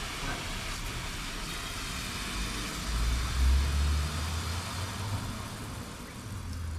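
Garden hose spray nozzle hissing steadily as it is set to a light misty spray. A low rumble swells about three seconds in, the loudest part, and comes back near the end.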